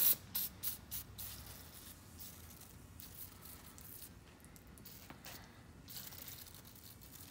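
Aerosol can of penetrating oil spraying in several short hisses over the first second or so, then a couple of longer sprays later on.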